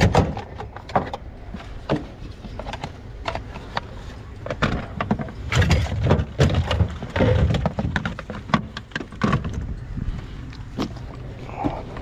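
Hard plastic power tools, battery packs and hand tools clattering and knocking against each other and the sides of an aluminium toolbox drawer as hands rummage through it. There is a run of heavier thumps about six to seven seconds in.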